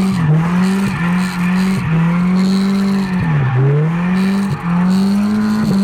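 Nissan 240SX engine held at high revs, its pitch dipping briefly and climbing back several times, the deepest dip about halfway through, with tire squeal as the car slides during a steering-angle test drive.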